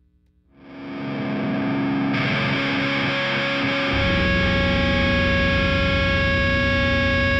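Heavily distorted electric guitar swelling in with a sustained, effects-laden chord. About four seconds in, a low distorted held note joins and the sound fills out.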